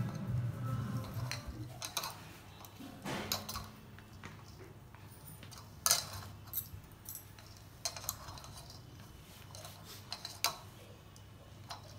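Bangles and hands clinking against a stainless-steel bowl while crumbly wheat-flour-and-ghee dough is mixed by hand: scattered sharp clicks and taps, with soft rubbing of the dough between them. A faint low hum runs underneath.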